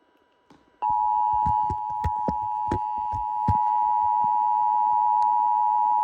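Emergency Alert System two-tone attention signal: a steady, loud dual-tone alarm that starts about a second in and holds without a break. Several sharp clicks or crackles sound over it during the first few seconds.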